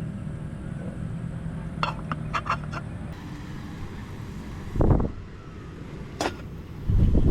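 Wind buffeting the microphone as a steady low rumble, with two louder gusts, one about five seconds in and one near the end. A quick run of light clicks comes about two seconds in, and a single sharp click a little after six seconds.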